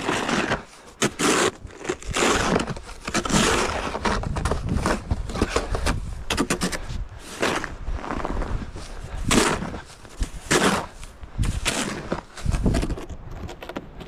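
Footsteps crunching and breaking through deep, crusted snow, an irregular step about once a second.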